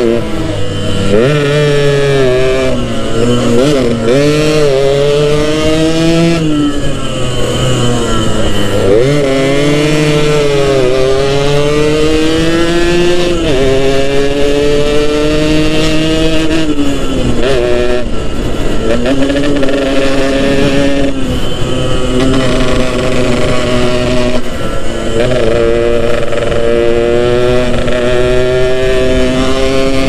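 Yamaha RX-King 135 cc single-cylinder two-stroke motorcycle under way, heard from the saddle. The engine's pitch climbs as it revs up through the gears and drops at each gear change or when the throttle closes, several times over.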